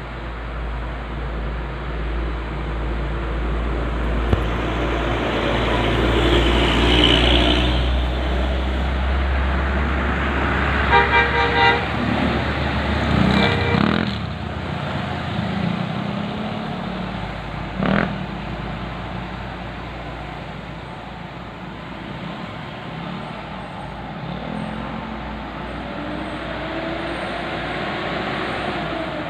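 Bus telolet horn playing a quick run of musical notes about eleven seconds in and again about thirteen seconds in, over the rumble of a heavy engine that falls away soon after. There is road traffic noise throughout and a short, sharp sound about eighteen seconds in.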